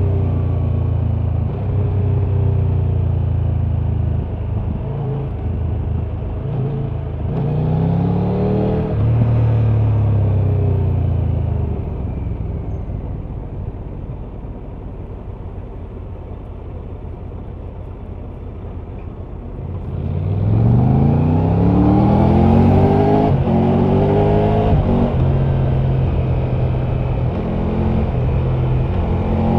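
Triumph Tiger 1200's inline-triple engine heard from the rider's seat while riding. It runs steadily in gear, the revs rise briefly about a quarter of the way in, and then it goes quieter on light throttle. About two-thirds of the way in comes hard acceleration, the revs climbing in several rising sweeps through the gears before settling back to a steady cruise.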